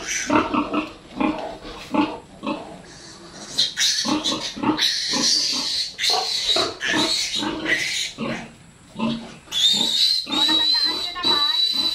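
Piglet squealing in a run of short cries while held up by its legs and restrained for an injection, then one long high-pitched squeal near the end.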